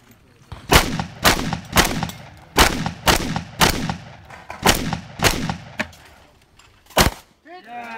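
Competition shotgun firing nine shots in quick strings about half a second apart, each with a short echo, with a longer pause before a last shot near the end.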